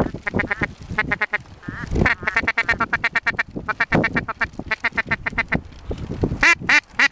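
Ducks quacking in rapid runs of short calls, several a second, with brief pauses between the runs.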